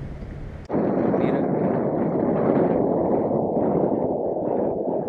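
Wind buffeting the camera's microphone: a steady, muffled rushing that starts abruptly about a second in.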